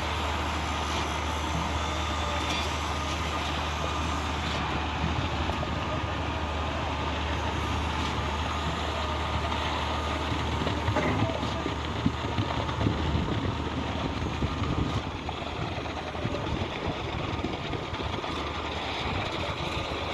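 Diesel engine of a truck-mounted Cifa concrete boom pump running steadily with a low hum during a concrete pour. A few knocks come through about two thirds of the way in.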